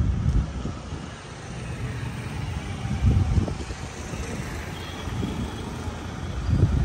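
A motor vehicle on the move: a steady low rumble, with louder low surges about three times.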